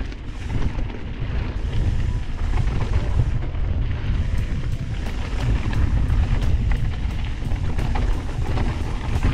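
Wind rumbling on the microphone as a Trek Fuel EX 8 full-suspension mountain bike rolls down a dirt flow trail, with tyre noise on the dirt and rattles from the bike. From about four seconds in, a steady run of sharp ticks, a few a second, comes through.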